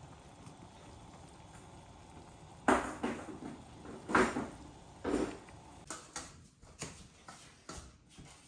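Dishes or cookware being handled: about two and a half seconds in come a few loud clatters over roughly three seconds, followed by a run of lighter clicks and rustling.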